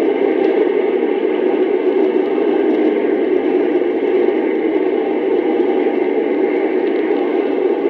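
Steady, unbroken engine drone from an archival sound-effects recording, with no shots, impacts or changes in pitch.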